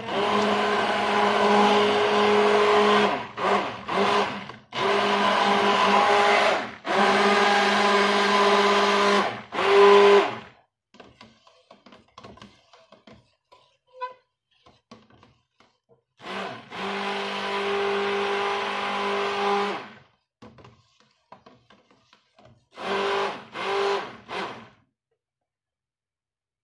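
Stick blender running in bursts in a pot of liquid Castile soap paste, re-blending a batch that separated into liquid when heated. A long stretch of blending with brief breaks fills the first ten seconds. Then come a few seconds of small clicks and knocks, one more run of a few seconds and a short final burst.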